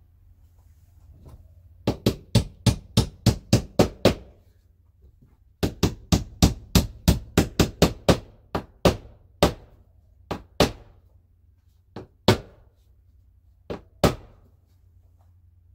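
Claw hammer driving a nail through fiber-cement (HardiePlank) lap siding: two quick runs of blows, about four a second, then a few slower, spaced strikes near the end as the nail is set.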